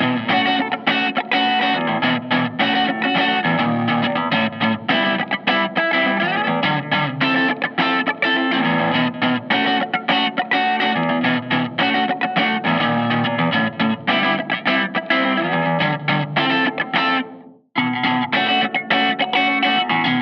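Thinline Telecaster-style electric guitar with handwound P90 pickups, played in a busy run of quickly picked notes and chords. The playing breaks off abruptly for a moment near the end, then starts again.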